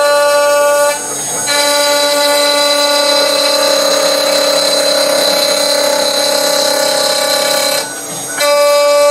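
CNC router spindle whining steadily as a 6 mm two-flute ball-nose cutter rough-cuts a wooden blank at slow feed. The whine dips and changes tone briefly twice, about a second in and near the end.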